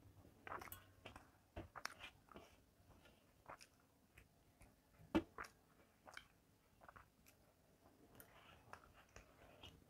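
Faint eating sounds by hand: soft scattered clicks of chewing and of fingers gathering food on a steel plate, with one sharper click a little past halfway.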